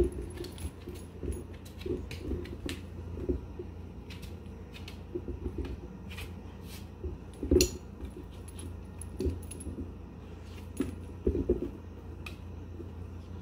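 A dog nosing and pawing an empty plastic kibble-ball treat toy on a tile floor: scattered light clicks and knocks from its claws, collar and the toy, the loudest about seven and a half seconds in.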